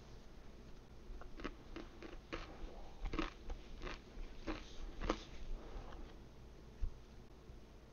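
A person chewing and biting crunchy frozen-pizza crust: irregular crunches, loudest about three and five seconds in, with a brief low bump near the end.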